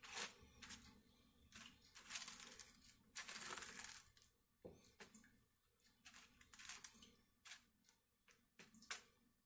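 Faint, irregular scraping and clicking of a plastic spoon stirring soft mashed potatoes and corn in a paperboard tray, with a longer rustling scrape between about two and four seconds in.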